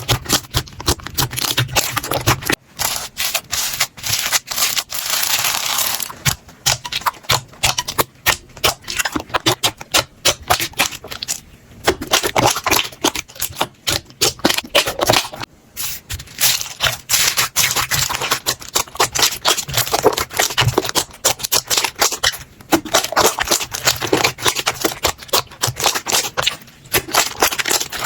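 Slime being squeezed and worked by hand: a dense run of crackling clicks and squishes that pauses briefly now and then.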